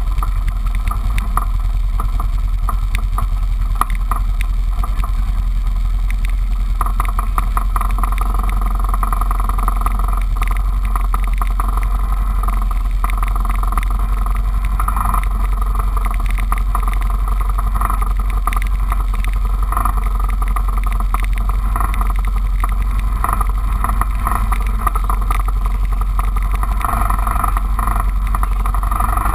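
Four-wheeler engine idling steadily close to the microphone.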